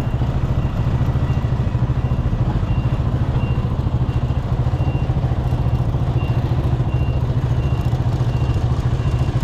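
Honda motorcycle engine idling steadily, heard close up from the rider's seat.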